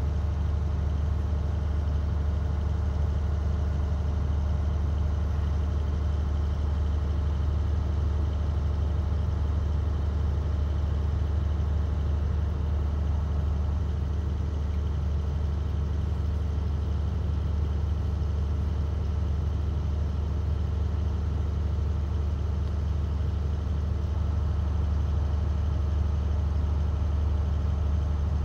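Engine of a gas well rig running at a steady speed: a deep, even drone that does not change.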